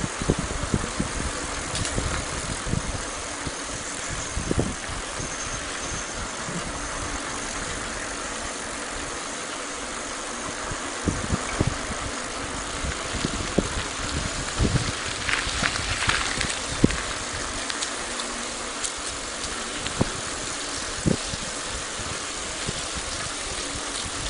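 Steady rumble and rushing noise from riding along a rough rural lane, picked up by the moving camera's microphone, with scattered knocks and rattles from bumps in the surface.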